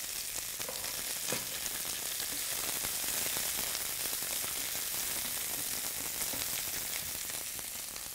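Sliced summer squash and shallots sizzling in a hot skillet, a steady frying hiss. A silicone spatula stirs them, giving a few soft scrapes and knocks against the pan.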